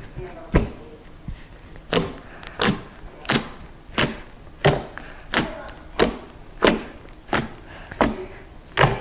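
Fingertips jabbing repeatedly into a slab of fluffy shaving-cream slime, each jab a short, sharp squish. The jabs come in a steady rhythm about every two-thirds of a second from about two seconds in, after a single earlier one.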